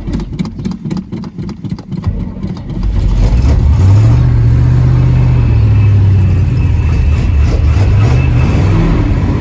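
An old pickup's 454 big-block V8 cranking on the starter, then catching about three seconds in and settling into a steady, louder run.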